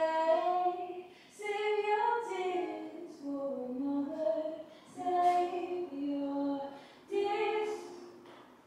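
A girl singing unaccompanied in a bathroom, heard through the closed door, in five short phrases of long held notes.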